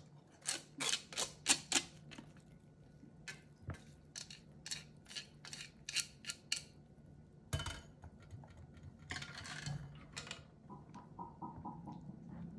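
Wooden chopsticks clicking and scraping against a perforated stainless-steel colander while picking food out of it: two quick runs of sharp clicks, then a short scrape and a few softer ticks near the end.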